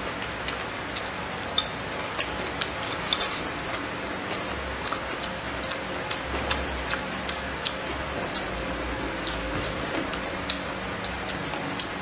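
Close eating sounds: chewing braised pork rib and rice, with irregular sharp clicks of wooden chopsticks against the plate, about one or two a second.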